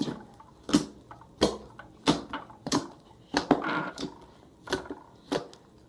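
Slime being squeezed and worked by hand, making a string of sharp clicking pops, about one every two-thirds of a second.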